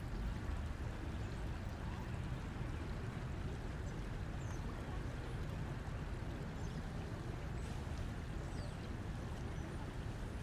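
Steady low rumbling background noise, even and unbroken, with a few faint high chirps about three quarters of the way through.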